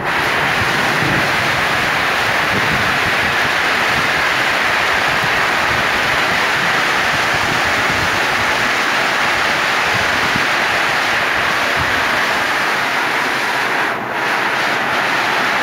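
Heavy rain falling steadily, a dense, even hiss of a summer downpour that dips briefly near the end.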